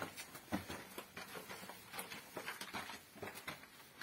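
Footsteps scuffing and clicking on a gritty dirt-and-stone floor, many quick irregular steps of people walking through a narrow passage.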